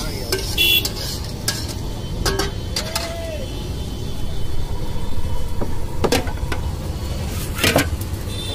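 Metal spatula scraping and clanking against an iron pan as food is tossed over a gas burner, with several sharp clinks, the loudest near the end. A steady low rumble from the burner and the street runs underneath.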